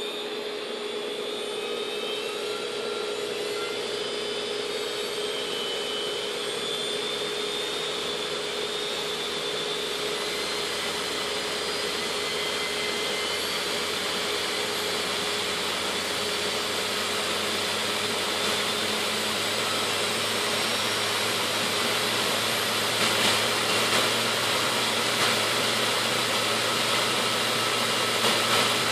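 Seagate Medalist hard drive spindle motor with four platters, driven by a sensorless BLDC controller, speeding up from 5400 RPM. It gives a steady whirring whine that climbs slowly in pitch and grows louder.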